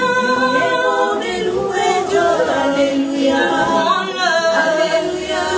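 A small group of women singing a Christian praise song together a cappella, without instruments.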